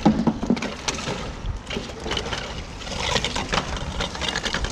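A magnet-fished metal grating being dragged up a stone embankment wall: irregular scraping and clanking of metal on stone, loudest right at the start.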